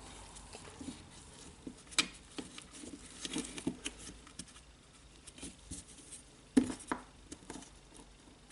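Light clicks and taps of small plastic grinder parts and wires being handled and fitted together by hand, with a sharper click about two seconds in and a few more close together near the end.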